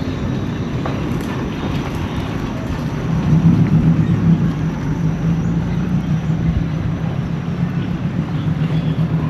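Street noise with a motor vehicle's engine running close by, a steady low hum that gets louder about three seconds in.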